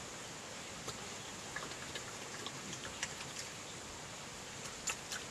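European badger chewing chips, a scatter of soft clicks and smacks, the loudest near the end, over a steady background hiss.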